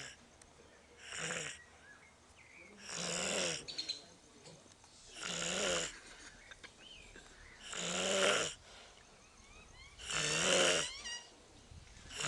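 A child snoring in deep sleep, with one snore every two to two and a half seconds, about six in all.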